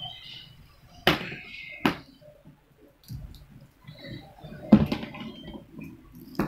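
A small child drumming on an upturned clear plastic storage box with a pink plastic toy spoon: four sharp, unevenly spaced knocks, the loudest a little after the midpoint.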